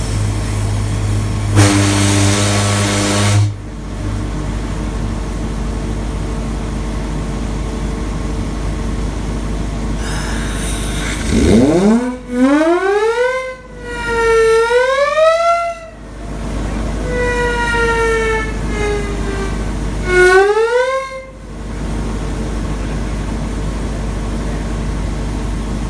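SS Shieldhall's steam whistle blowing in several long blasts. Each blast slides up in pitch from a low growl, wavers up and down, and falls away, after a brief hiss of steam. Earlier, about two seconds in, a short steady low horn blast sounds over a constant low rumble.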